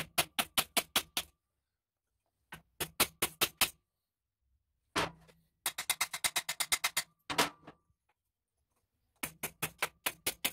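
Hammer tapping quickly on a wooden block held against the exhaust header pipe of a Honda CB750, in four short runs of about eight light taps a second with pauses between. The taps are working a header pipe stuck with set exhaust assembly paste loose from the engine.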